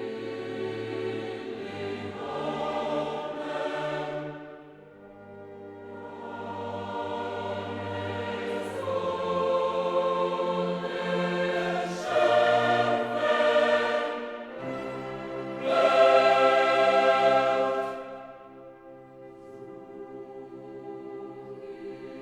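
Background music: a choir singing long held phrases that swell and fade.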